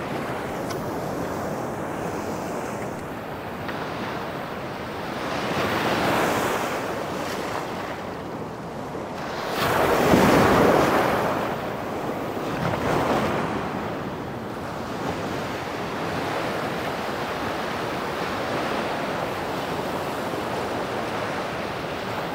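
Small surf breaking and washing up the sand at the water's edge, in a few surges, the loudest about ten seconds in.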